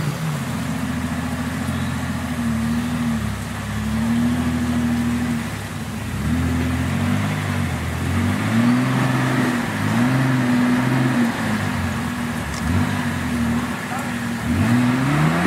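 Off-road 4x4 engine revving up and down again and again, each swell lasting about a second, with a steep climb in revs near the end.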